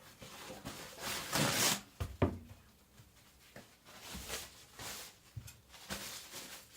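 Handling noises around the Chinese cleaver: a few soft rubbing swishes, the loudest about a second and a half in, and one sharp click just after two seconds.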